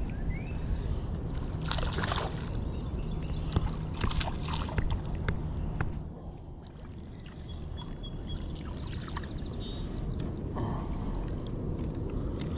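Water sloshing and splashing as a wader reels in and lands a small bass, with a few sharp splashes in the first half.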